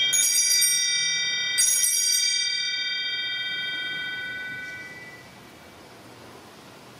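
Altar bell struck twice, once at the start and again about a second and a half in, each strike ringing with several clear high tones that fade out by about five seconds: the consecration bell marking the elevation of the chalice.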